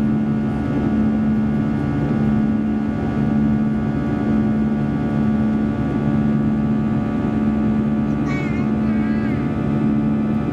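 Airbus A320-200's jet engines heard inside the cabin during the climb after takeoff: a steady drone made of several constant tones. A short wavering high sound comes about eight seconds in.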